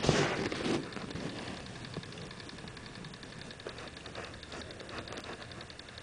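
Small motor of a rotating jewellery display turntable running, with a fast, even ticking over a low hum. A brief burst of noise comes in the first second.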